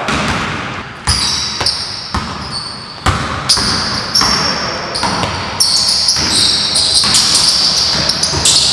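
Basketball being dribbled on a hardwood gym floor, its bounces irregular as players drive and change pace, with sneakers squeaking high on the boards, squeaks coming almost without break in the second half.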